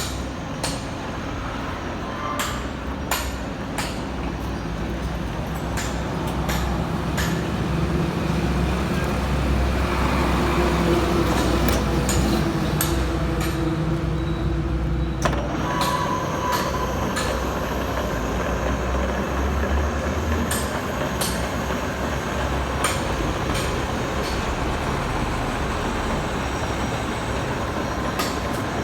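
Okuma radial arm drill running: a steady motor and gearbox hum with scattered sharp clicks. About ten seconds in it grows louder with a steady tone added, which cuts off suddenly about five seconds later.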